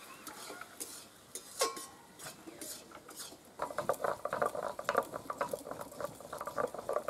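Metal spatula clinking and scraping against an aluminium kadai while a cabbage-and-potato curry is stirred. A few scattered clinks come first, then a fast run of scraping clicks from about halfway.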